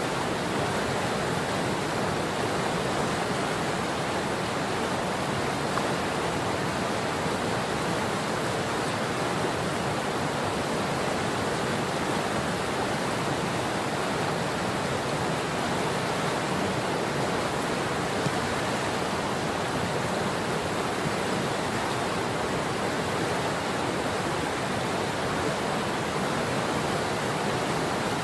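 River water rushing steadily, an even wash of flowing-water noise that never changes.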